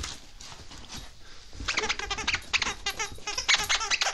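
Dog's squeaky plush toy squeaking rapidly as the dog chews and tugs on it, starting about one and a half seconds in.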